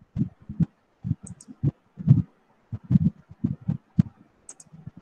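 Irregular soft thumps and taps of a computer keyboard and mouse being worked close to the microphone, about three a second with short pauses.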